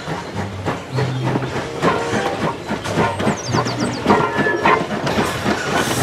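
Small steam tank locomotive passing with a passenger coach: a steady run of exhaust chuffs and clanking wheel clatter on the rails.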